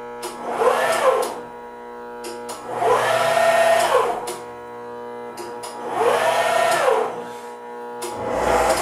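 Axis servo motors of a Bridgeport Series 1 R2C3 CNC milling machine whining through three jog moves, each rising in pitch as the axis speeds up and falling as it slows, with a fourth starting near the end. A steady hum from the drives runs underneath, and a few sharp clicks fall between the moves.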